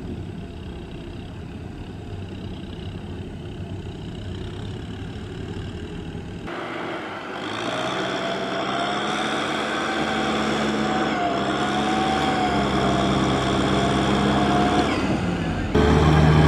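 Farm tractor engines running hard under load as the tractors churn through deep mud. The engine note grows louder and changes abruptly twice.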